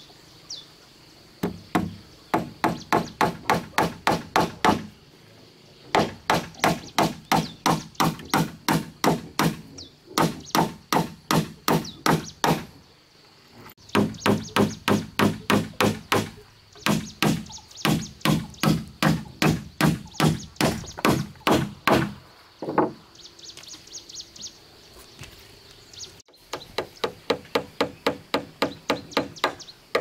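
Hammer striking the wooden planks of a boat hull: quick runs of sharp blows, about three or four a second, broken by short pauses.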